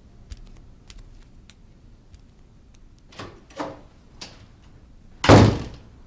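A door shut with one loud thud about five seconds in, after a few softer knocks and rattles a second or two earlier.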